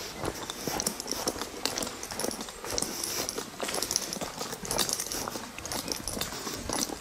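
Footsteps of a person walking on an earth-and-gravel path, a steady run of short, uneven scuffing steps.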